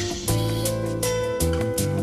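Background music: guitar with a steady drum beat.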